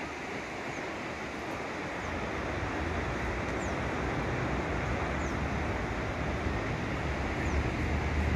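Steady rushing noise of a whitewater river in the canyon below, with a low engine hum from motor traffic that builds from about two seconds in and grows louder toward the end. A few faint short high chirps sound now and then.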